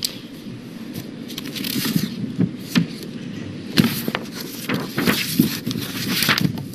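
Paper rustling and crackling close to a lectern microphone as sheets are handled and turned: a run of irregular rustles, busiest in the second half.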